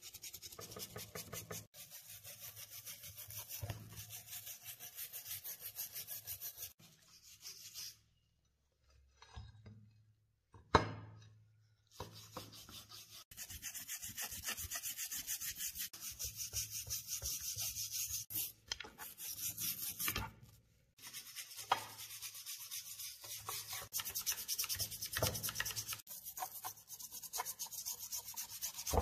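Small wire brush scrubbing a rusty steel pistol part in soapy water: rapid back-and-forth scratching strokes, broken by two short pauses. A single sharp knock comes a little before the middle.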